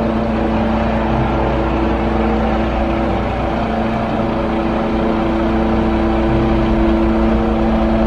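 Diesel engine of a truck-mounted aerial work platform running at a steady speed while its hydraulic boom moves, a constant hum that holds one pitch throughout.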